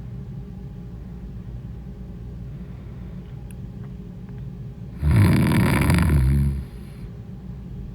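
A woman snoring: a steady low rumble, then one loud, harsh snore about five seconds in that lasts about a second and a half.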